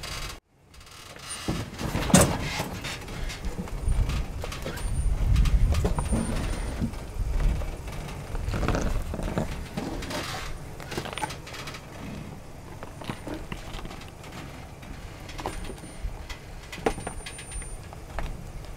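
Lifted Ram Power Wagon pickup crawling down steep rock ledges: a low engine rumble under the crunch and crackle of tyres rolling over rock and loose gravel, with scattered knocks and scrapes.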